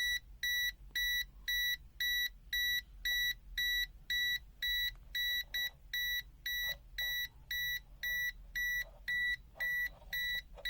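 Prokit MT1280D multimeter's non-contact voltage (NCV) beeper sounding a steady series of short high-pitched beeps, about two a second. It signals that the meter senses a live AC wire close by.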